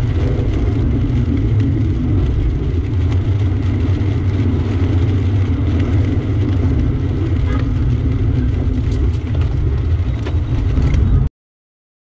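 Car driving on a wet highway in the rain, heard from inside the cabin: a steady low rumble of road, tyre and wind noise, which cuts off abruptly near the end.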